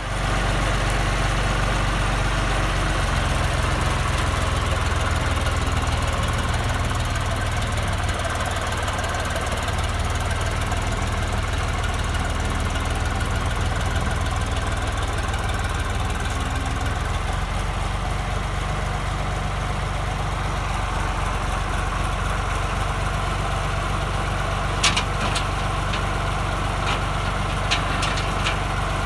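John Deere 2240 tractor's three-cylinder diesel engine idling steadily, its note shifting slightly a few seconds in and again about halfway through. A few light metallic clinks of the tow chain being handled near the end.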